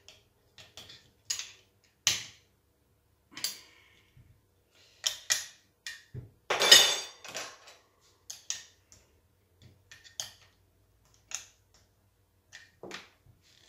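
Clicks, taps and knocks of a glass jar and its screw-top lid being gripped through a cloth and twisted, the lid stuck fast and refusing to open. A louder rasping stretch of about a second comes about halfway through.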